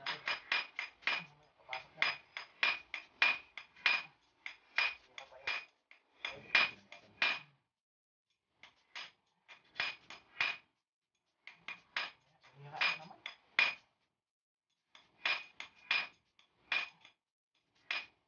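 Small hammer striking a steel punch, giving quick ringing metal-on-metal taps, about three or four a second. The taps come in runs with a few short pauses between them.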